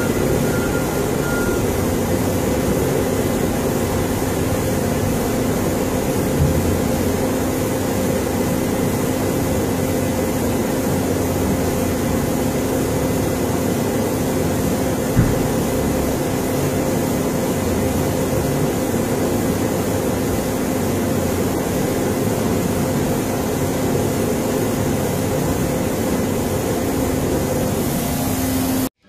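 Diesel engine of a Komatsu wheel loader running steadily under work, a constant hum with two brief knocks.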